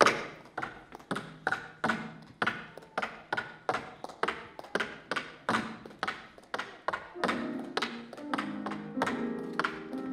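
Tap shoes striking the stage floor in a steady rhythm of sharp taps, about three a second, each ringing briefly in the hall. About seven seconds in, piano chords join under the taps.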